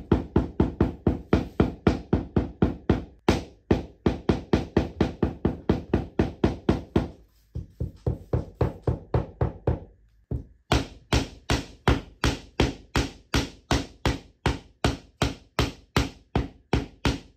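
Hammer pounding flowers and leaves into cloth on a wooden floor, quick steady blows about four a second, with brief pauses partway through. The hammering presses the plant colours into the fabric for eco-printing.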